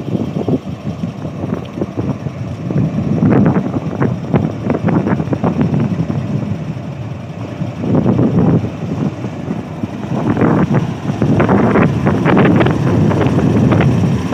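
GE GEU40 diesel-electric locomotive's engine idling close by, with an uneven, rising and falling sound that has wind buffeting the microphone in it.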